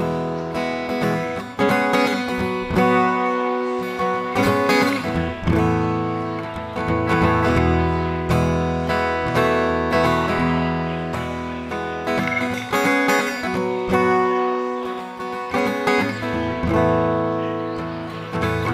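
Steel-string acoustic guitar strumming chords in a steady rhythm, played as an instrumental passage.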